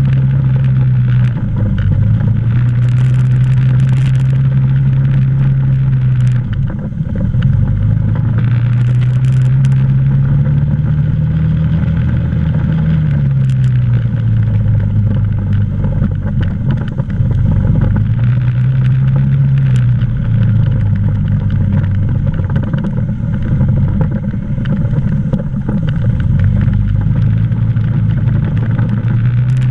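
ATV engine running as the quad rides along a dirt trail, its pitch rising and falling several times as the throttle is worked, with a brief drop in engine speed about seven seconds in.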